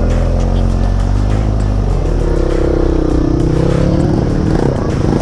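Motorcycle engine running and revving, its pitch rising and then falling about two to four seconds in.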